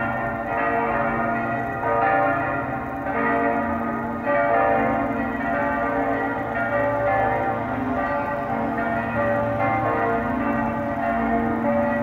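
Church bells pealing: several bells ringing together, fresh strokes coming every second or so and overlapping, so the ringing carries on without a break.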